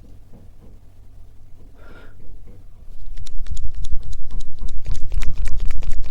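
Close-miked ASMR handling on a TASCAM recorder's microphones: soft rubbing at first, then about three seconds in, loud, rapid tapping and scratching, several crisp clicks a second over heavy low thuds.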